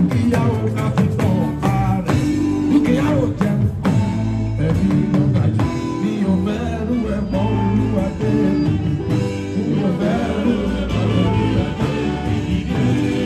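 Live band music: electric guitars with Yoruba hourglass talking drums and a singing voice.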